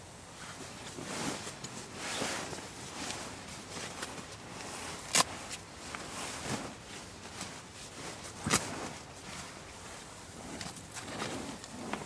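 Sleeping bag fabric rustling and crinkling as it is handled and bundled up, with two sharp clicks, the first a little before halfway and the second about three seconds later.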